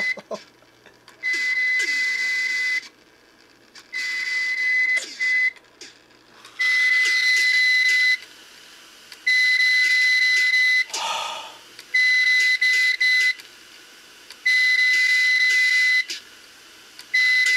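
Opened-up failed Seagate 1 TB hard drive beeping: a steady high tone in bursts of about a second and a half, repeating roughly every two and a half seconds, with a short falling sound about eleven seconds in. The repeating beep is typical of a drive's spindle motor trying and failing to spin up.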